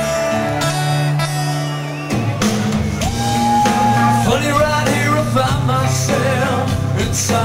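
Hard rock band playing live through a concert PA, recorded from the crowd: electric guitars and bass hold chords, the drum kit comes in hard about two seconds in, and a male singer sings over them.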